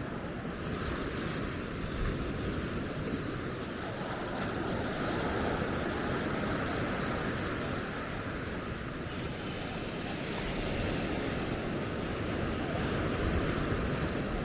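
Sea surf breaking and washing up on the shore, a steady rushing that swells a little now and then, with some wind on the microphone.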